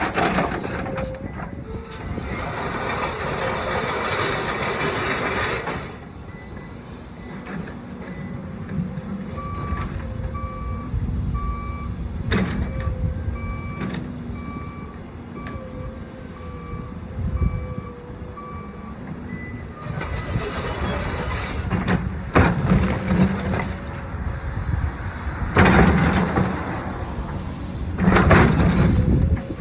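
Backhoe's diesel engine running under load, with its reversing alarm beeping steadily for several seconds in the middle. Several stretches of rougher, harsher noise come and go over the engine, the loudest near the end.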